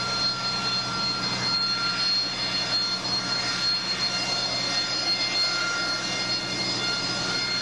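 AV-8B Harrier's Rolls-Royce Pegasus vectored-thrust turbofan running at hover power as the jet settles vertically onto the deck: a steady, even jet noise with several constant high-pitched whine tones.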